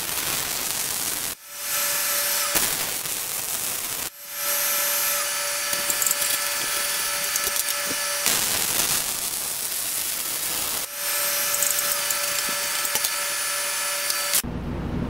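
MIG welding in spray-arc transfer on a Millermatic 255: a steady hissing arc that drops out briefly three times and resumes, with a faint steady whine in some stretches, then stops abruptly near the end.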